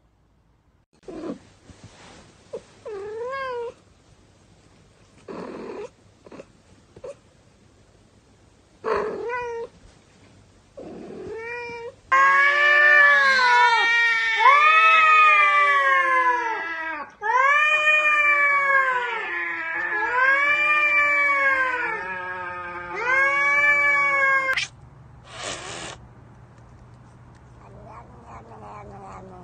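Cats meowing, with short wavering calls through the first ten seconds or so. Then a cat yowls loudly at another cat in a run of long wails, each rising and falling, for about twelve seconds.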